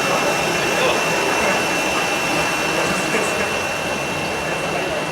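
Steady din of a busy exhibition hall, with faint voices and a constant high-pitched whine.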